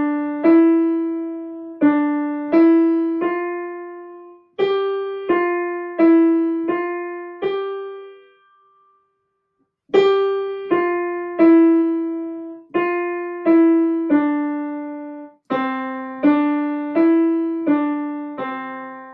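Piano played with the right hand only in C position: a simple beginner melody, one note at a time, stepping up and down from middle C. Two phrases, with a pause of about two seconds in the middle, and the last note dies away near the end.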